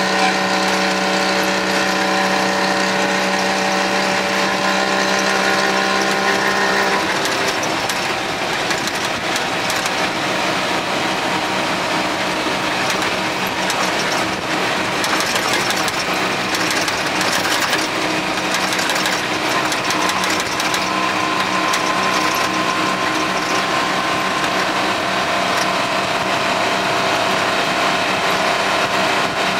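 White 4000 truck's engine running steadily under way, heard from inside the cab. About seven seconds in the steady engine note changes abruptly and turns rougher, with scattered clicks and rattles through the middle stretch, before a steady note returns.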